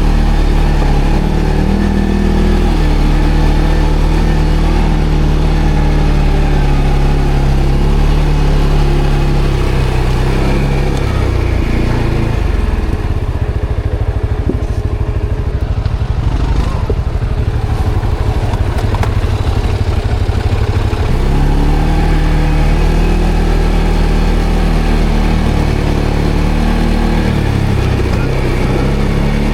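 ATV engine running, its revs rising and falling as it rides, settling to a lower, rougher note for several seconds in the middle before picking up again.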